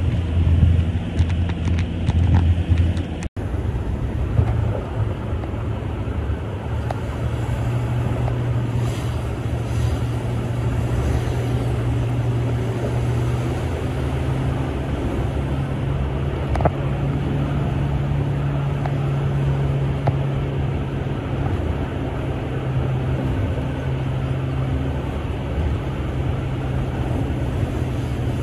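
Car cabin noise while driving: a steady low engine and road rumble with tyre and wind hiss. It cuts out for an instant about three seconds in.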